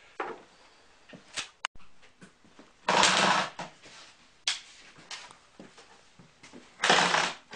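Carpentry work on floor framing: scattered knocks and clicks with one sharp snap, and two loud, harsh bursts of under a second each, about three seconds in and again near the end.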